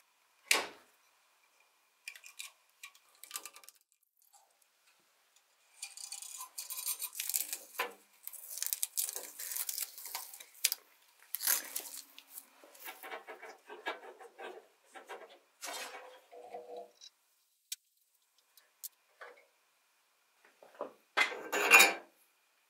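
Hand work stripping an old sword hilt. A small knife cuts and scrapes at the cord-wrapped grip, then comes a long stretch of scraping and tearing as the old fibrous grip wrapping is pulled away. Near the end there is a short loud metallic clatter as the bell guard is lifted off the tang.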